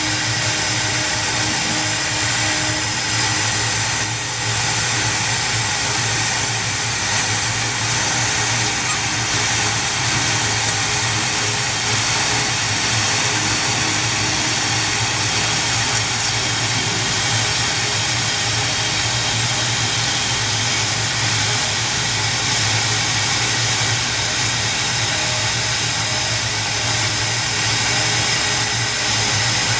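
Momus CNC X2S router's spindle running steadily at 18,000 RPM while a 0.063-inch end mill cuts through 0.2-inch plywood, a continuous whine and hiss with a low hum underneath.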